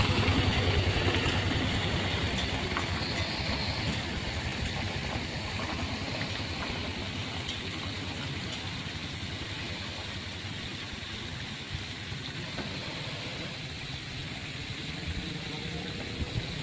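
Motor scooter engine pulling away and fading over the first several seconds, leaving a steady low engine rumble in the background.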